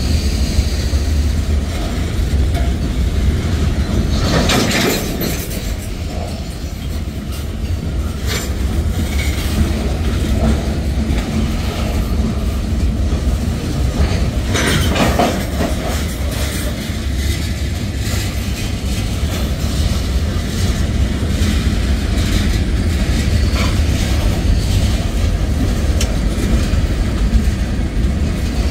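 Freight train cars rolling past: a steady low rumble of steel wheels on rail with wheel clatter. Louder clanks come about five seconds in and again near fifteen seconds.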